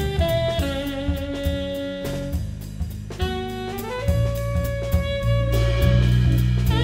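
Jazz quartet playing live: a tenor saxophone carries the melody in long held notes, with a short break just before the middle, over electric bass, electric guitar and a drum kit keeping time on the cymbals.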